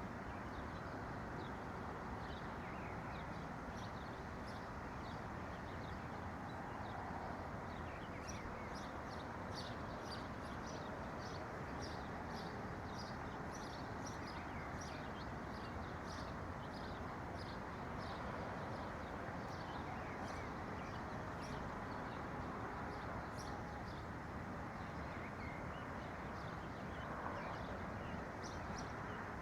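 Small birds chirping over a steady low background rush. Through the middle comes a long run of short, high chirps repeated about twice a second, with scattered calls before and after.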